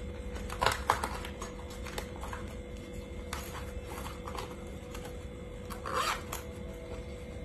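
Packaging being handled during an unboxing: rustling and scraping with a few sharp clicks, the loudest about a second in and another about six seconds in. A faint steady hum runs underneath.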